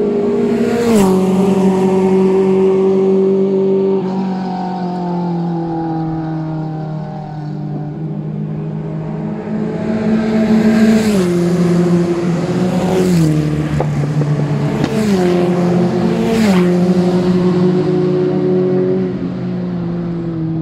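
Race car engine held at high revs. Its note drops sharply about five times as it shifts gear, each shift marked by a sharp crack.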